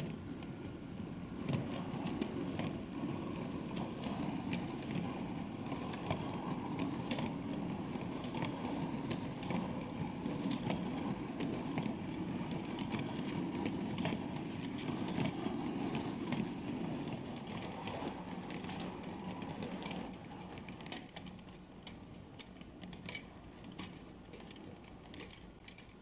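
OO gauge model train of Accurascale PCV bulk cement tank wagons rolling along the track: a steady rumble of wheels on rails with frequent sharp clicks. The rumble drops away after about 20 seconds, leaving quieter running and scattered clicks.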